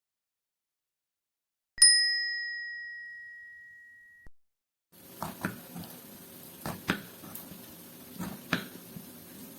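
A single bell-like ding, struck once and fading away over about two and a half seconds. About a second after it dies out, irregular light knocks and clatter begin over a low room noise.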